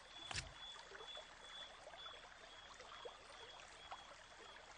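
Near silence: faint hiss under a faint, steady high tone that breaks off now and then, with one soft thump about half a second in and a few tiny ticks later.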